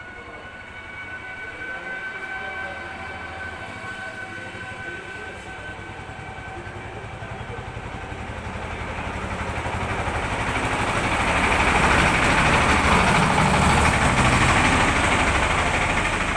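A train approaching and passing, its noise building steadily to a loud peak about three-quarters of the way through and starting to ease off at the end. A few steady high tones sound in the first half and fade out.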